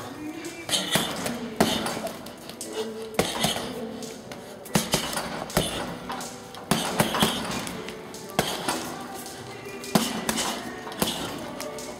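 Boxing gloves striking a double-end punching ball held on cords, irregular sharp hits often in quick pairs, over background music.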